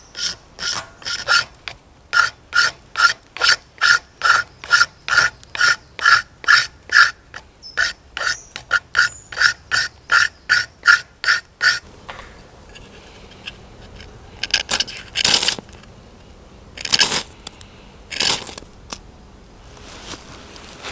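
Crook knife scraping a damp stick into fine shavings in quick, even strokes, about two and a half a second, each with a slight ring. About halfway through the scraping stops, and a few slower, harsher strokes follow.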